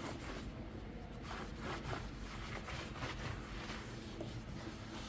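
Cloth wiping dust off the bare skateboard deck: a series of soft, irregular rubbing strokes, cleaning the surface so the new griptape will stick.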